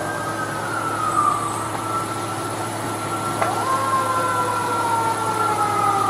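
Fire apparatus sirens wailing, several tones overlapping and sliding slowly in pitch; one sweeps sharply up about three and a half seconds in, then falls slowly away. A steady low hum runs beneath.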